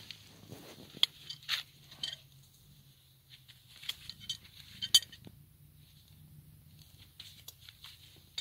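Hoof nippers cutting through the hoof wall of a horse's front hoof: a series of sharp snaps and clicks at irregular intervals, loudest about a second in and again about five seconds in.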